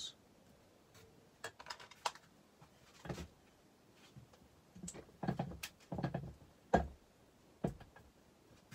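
Scattered light clicks and knocks of objects being handled at a workbench, in short irregular clusters; the sharpest knock comes near the end.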